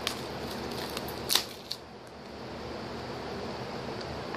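Plastic Blu-ray/DVD case being handled and opened: a few short sharp clicks, the loudest about a second and a half in, over a steady background hiss.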